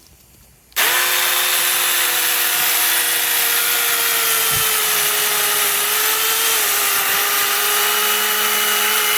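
Sinpy 21-volt mini battery chainsaw with a 6-inch bar starting under a second in and running with a steady electric-motor whine as it cuts through a branch. The pitch sags slightly about six and a half seconds in.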